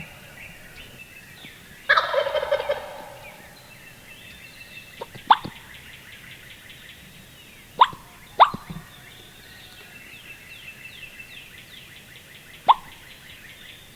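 A wild turkey gobbler gobbles once about two seconds in, a rattling call. Four short, sharp clucks follow, spread through the rest, made on a turkey call to answer the gobbler. Songbirds chirp faintly throughout.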